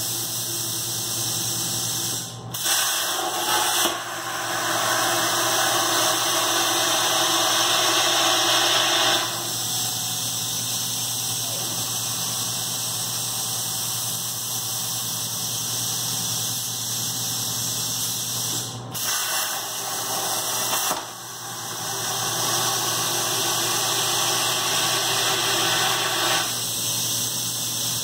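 CNC plasma table cutting slots and holes into 4x2 steel tube: a steady hiss over a low hum. Twice the hiss drops away briefly and then comes back louder for several seconds.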